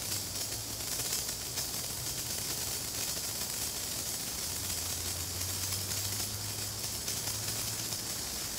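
Senko hanabi (Japanese incense sparkler) burning, its dross ball throwing sparks: a steady fizzing hiss, strongest in the highs, with a faint low hum underneath.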